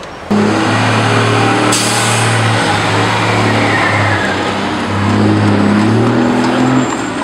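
A motor vehicle's engine running loud and close, cutting in suddenly just after the start, with a low steady hum that shifts in pitch in a few steps. A short burst of hiss about two seconds in.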